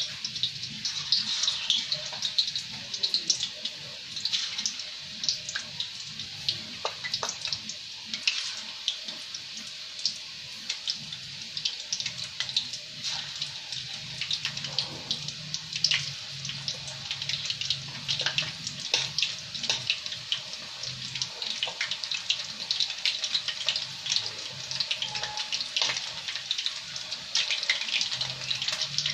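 Battered chicken fillet pieces deep-frying in a pot of hot oil: a steady sizzle with constant crackling pops.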